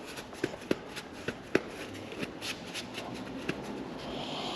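Irregular light clicks and taps of small parts and tools being handled, about two or three a second, the loudest about a second and a half in.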